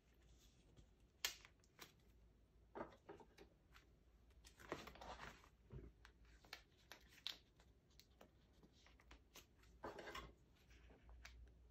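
Faint, scattered rustles and light clicks of photocards being slid into the pockets of clear plastic binder sleeves and the sleeves being handled.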